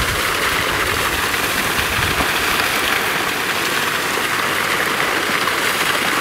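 Steady hiss of water, even throughout, with a low rumble that fades out about two seconds in.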